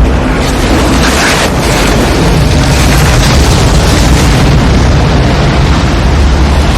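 Film sound of a tornado: loud, continuous roaring wind with a deep rumble, swelling a little about two seconds in.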